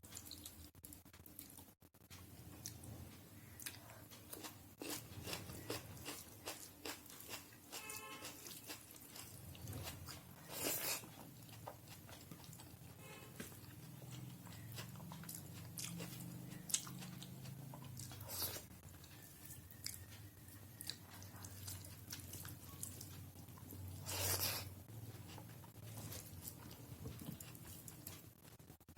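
Close-up chewing and mouth sounds of a person eating a meal of rice, dal and fried food, with many small wet clicks and a few louder crunchy bites, about three times.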